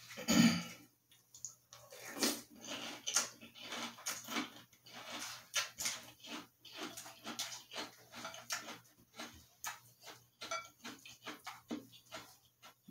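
Close-up chewing of crunchy Apple Pie Toast Crunch cereal in milk: a rapid, irregular series of crisp crunches and wet mouth sounds, with a spoon working in a glass bowl.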